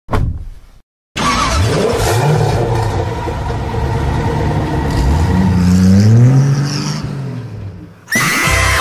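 Sports car engine starting up and revving, its pitch climbing twice as it accelerates away, then fading out. A short thud comes just before it starts, and a brief high-pitched sound comes near the end.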